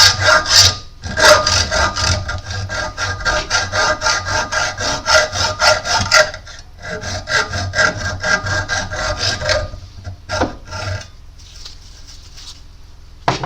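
Hacksaw blade sawing back and forth across a metal pin clamped in a vise, about four quick strokes a second with a metallic ringing tone, cutting a shallow groove into the pin. The sawing pauses briefly about six seconds in, resumes, and stops after about eleven seconds.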